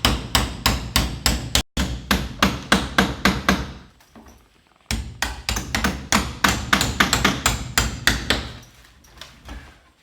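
A hammer rapidly striking the back of a hacking knife, about four or five blows a second, driving the blade in to prise off a sash window's staff bead. The blows stop for about a second midway, then resume and grow fainter toward the end.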